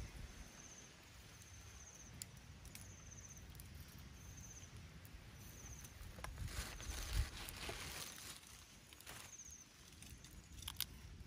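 Quiet outdoor ambience: an insect chirps in short pulsed bursts about once a second over a low rumble. A few small clicks fall early and near the end, and a brief hiss rises about six seconds in.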